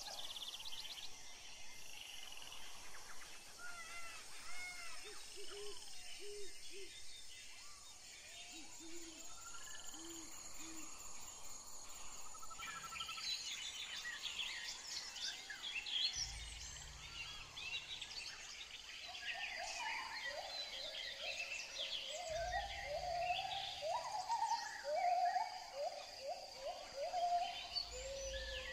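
Birds chirping and calling, with quick high chirps and a few repeated lower hooting notes. A short low hum comes and goes three times in the second half.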